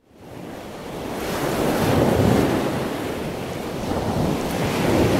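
A steady rushing noise that fades in from silence and swells twice, about two seconds in and again near the end, in the manner of surf washing in.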